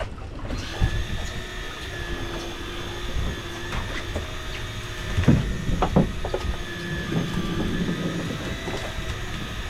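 Electric fishing reel winding in line with a steady motor whine over the low rumble of the boat, with two sharp knocks near the middle.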